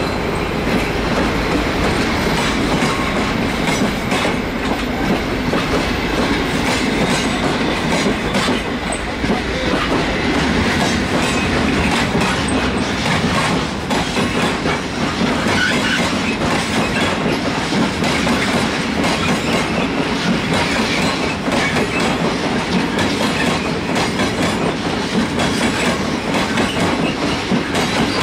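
Railway wagons rolling past close by: a steady rumble with the clatter of wheels over rail joints, first from passenger coaches, then from flat wagons loaded with tracked armoured vehicles.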